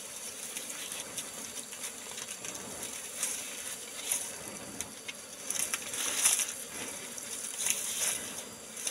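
Dry leaf litter and twigs rustling and crackling in irregular bursts, loudest about six seconds in, over a steady high buzz of forest insects.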